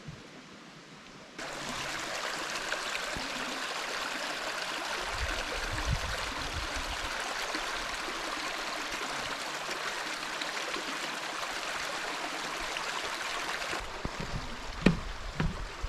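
Creek water rushing, a steady, even rush that starts abruptly about a second and a half in and drops away near the end, followed by a few short thumps.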